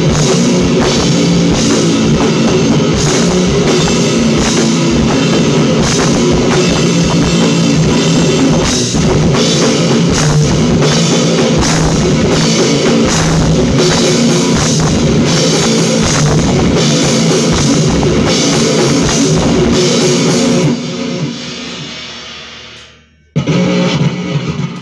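Electric guitar and drum kit playing a loud, heavy rock jam together with a steady beat. The playing stops about 21 seconds in and the sound rings out and fades, with a brief loud burst near the end.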